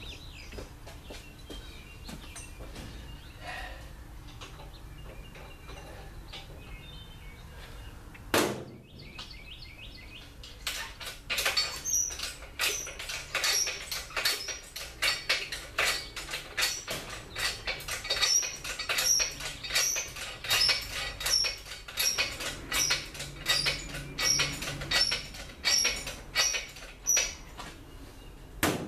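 Shop engine hoist being worked by hand: one sharp metal clank about eight seconds in, then a rhythmic metallic clank and squeak about three times every two seconds through the rest.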